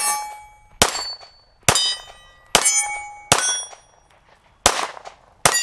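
Seven 9mm pistol shots fired at a steady, slow pace, about one a second with a longer pause before the sixth. Each shot is followed by the ringing clang of steel targets being hit.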